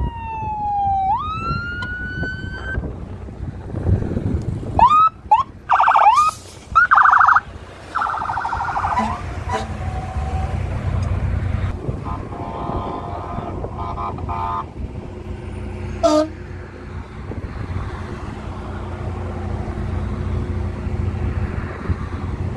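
Fire engine siren wailing, then yelping in fast up-and-down sweeps, with several loud horn blasts, over the steady low rumble of the truck's engine.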